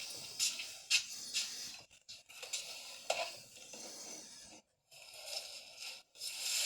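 Light rustling and handling noises, with a few soft knocks, cut off abruptly several times.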